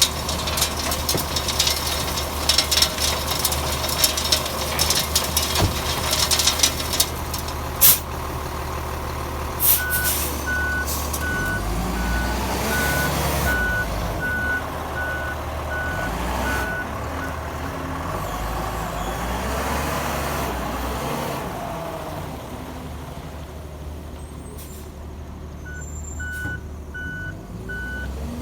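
Dump truck's diesel engine running with its conveyor carrying 1¼-inch crushed rock, a dense crunching rattle for the first ten seconds or so. A vehicle's reversing alarm then beeps at an even pace, stops for several seconds, and starts again near the end.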